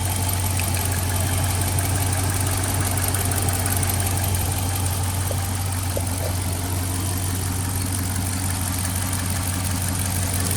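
Dodge Charger AWD's 5.7-litre Hemi V8 idling steadily.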